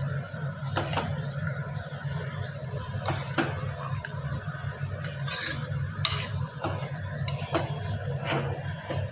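Utensils clinking and knocking against pots and dishes, about a dozen irregular strikes, over a steady low hum.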